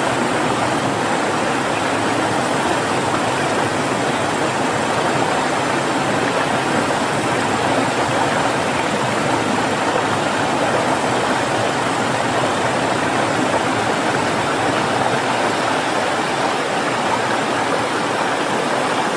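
Steady rush of a rocky mountain stream, an even, unbroken water noise.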